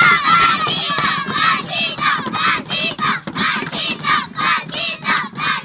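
A group of young children shouting together in high voices. After about two seconds the shouts settle into a rhythmic chant of about three syllables a second.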